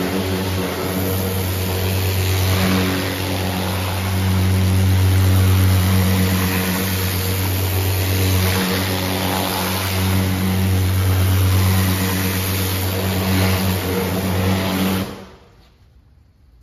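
Electric pressure washer running, its motor humming steadily under the hiss of the water jet blasting an alloy wheel and tyre. The motor and spray stop abruptly near the end as the trigger is released.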